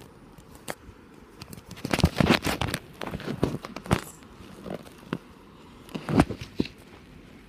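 Small toy animal figures being handled and tapped against a wooden floor and dollhouse: irregular clusters of light knocks and rustles, with the busiest stretches about two, three to four, and six seconds in.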